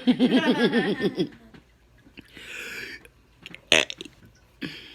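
A woman's long burp with a wobbling pitch, about a second and a quarter, burping out the next letter of the alphabet. A brief sharp click comes near the end.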